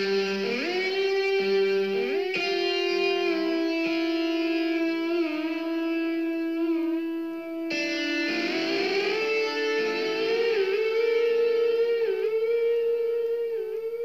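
Instrumental music starting abruptly: a lead line of long held notes that slide up into place and bend and waver in pitch, over sustained lower tones, with a fresh rising entry about halfway through.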